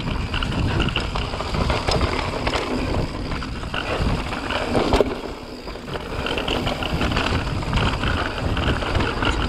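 Mountain bike rolling fast downhill on a dry dirt trail: tyres crunching over loose dirt and the bike rattling over bumps, with wind rumbling on the camera microphone. A sharper clatter about five seconds in.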